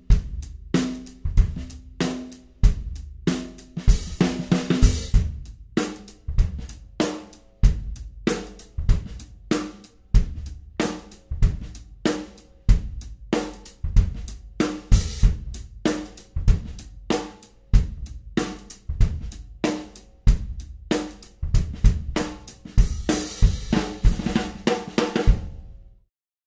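Drum kit groove played with sticks, featuring a 14 x 6.5 aluminum snare fitted with an Evans Heavyweight Dry head: a two-ply, vented, reverse-dot head, tuned high. Snare cracks sit over bass drum and cymbals, with heavier cymbal wash twice, and the playing stops abruptly just before the end.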